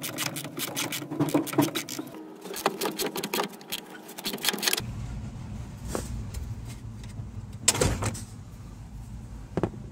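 Ratchet wrench clicking rapidly, about eight clicks a second, as it backs off the nuts holding the power brake booster to the firewall. About halfway through this gives way to a steady low rumble with a few sharp metallic clinks.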